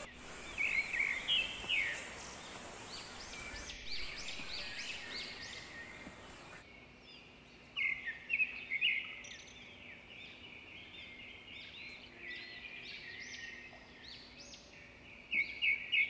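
Forest birds calling: many short, high chirping notes repeated over and over, several birds at once.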